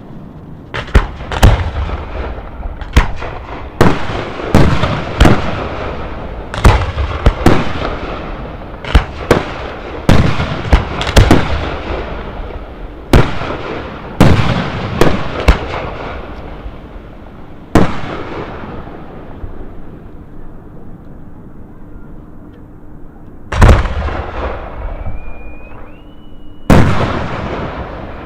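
Aerial firework shells bursting in a fast series of loud booms, each trailing off in an echo; after a few seconds' lull, two more heavy booms near the end.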